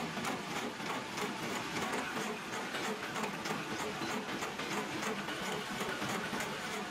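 Milling machine's toothed disc cutter cutting a groove into a steel sword blade under liquid coolant: a steady cutting noise with a regular, rapid ticking from the cutter teeth biting the steel.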